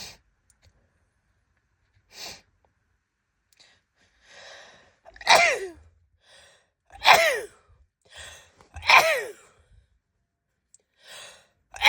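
A woman sneezing three times, about two seconds apart. Each sneeze comes after a short in-breath and has a voiced cry that falls in pitch. A fourth sneeze begins right at the end.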